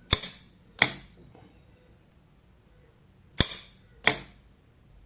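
Solenoid bolt lock snapping open and shut as the fan's Hall-sensor circuit switches its relay with a magnet: four sharp clacks in two pairs, each pair about 0.7 s apart.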